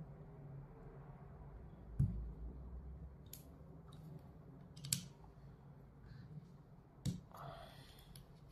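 Small screwdriver clicking and tapping against the metal housing of a fiber laser galvo scanner head as its screws are worked: four separate sharp clicks a second or two apart, the first the loudest, followed by a brief scraping rustle near the end.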